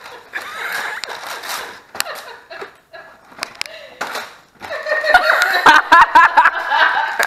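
Paper rustling and tearing as a gift-wrapped box and its tissue paper are pulled apart, with a few sharp clicks. Then loud laughter breaks out about five seconds in.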